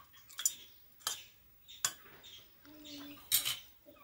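A steel spoon clinking against stainless steel bowls while oil is spooned from one into another: about four sharp clinks, the loudest near the end.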